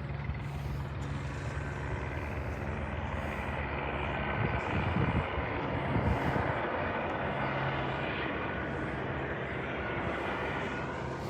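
Helicopter flying overhead, a steady drone of rotor and engine that builds to its loudest about halfway through and then slowly fades.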